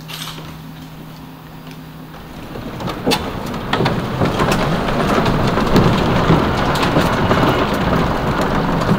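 Open golf buggy driving along a wooden boardwalk: rumble and clatter of the tyres over the planks, with a rush of air that swells about two and a half seconds in as the buggy picks up speed.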